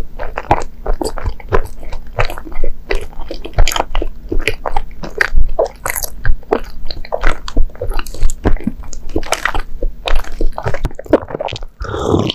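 Close-miked chewing of soft Japanese sweets such as mochi and dorayaki: rapid, irregular mouth clicks and smacks. Near the end comes a sip from a small cup.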